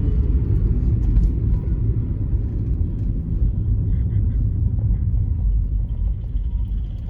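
Car's engine and road noise as a steady low rumble, easing off slightly near the end as the car slows for a red light.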